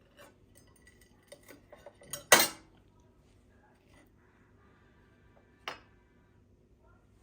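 Kitchenware clattering: a few light clinks, then one loud clatter a little over two seconds in and a smaller one near the end.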